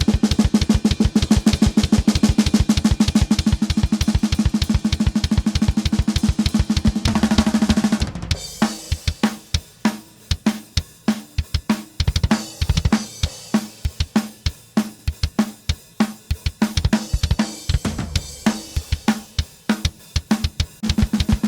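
Playback of a live-recorded metal drum track through the bottom-snare microphone: rapid, evenly spaced snare hits for about eight seconds, then slower, sparser snare hits with kick drum spill underneath.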